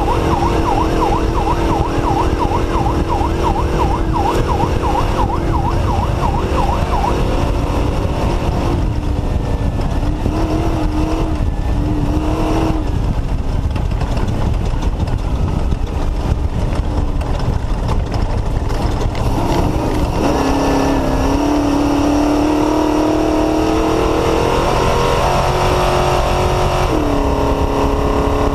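Off-road race car's engine running hard at race speed, its revs dipping and rising several times over a constant loud rumble. A high warbling tone sounds over it for the first several seconds.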